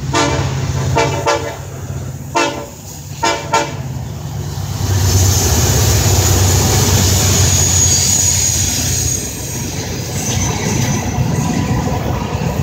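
Diesel freight locomotive sounding its air horn in a series of short blasts during the first four seconds as it approaches. From about five seconds in, the locomotive runs loudly past, followed by the rumble of freight cars rolling by.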